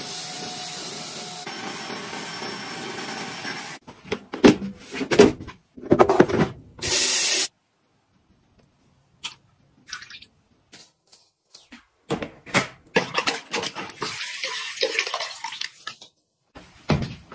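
A cordless stick vacuum cleaner runs steadily for about four seconds and then stops. This is followed by scattered knocks and bursts of handling. Water then runs and splashes into a plastic basin for several seconds, and a thump comes near the end.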